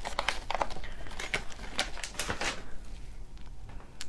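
Crinkling and clicking of a plastic seasoning bag being handled as seasoning is pinched out over a plate of crab claws: a dense run of crackles for the first two and a half seconds, then only a few scattered clicks.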